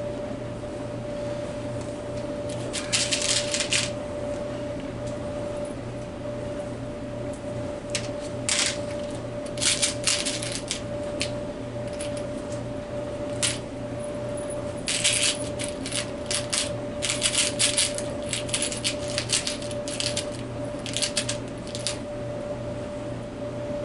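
Small metal screws clattering and rattling as they are picked through by hand, in bursts of quick metallic clicks. A steady hum runs underneath.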